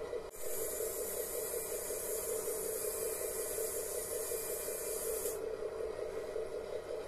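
Radio-controlled 8x8 model tow truck's wrecker boom system running with a steady hum. A sharp hiss cuts in just after the start and stops suddenly about five seconds in.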